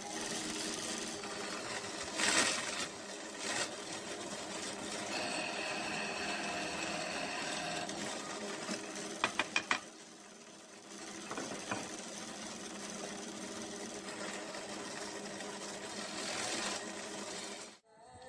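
Drill press with a Forstner bit running steadily and boring into pallet wood. A quick run of four sharp clicks comes about nine and a half seconds in, and the sound cuts off suddenly near the end.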